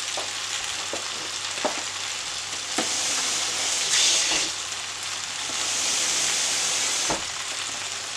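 A pot of sausage and aubergine curry sizzling with a steady hiss. The hiss swells louder from about three to four and a half seconds in, and again from about five and a half to seven seconds, with a few faint crackles.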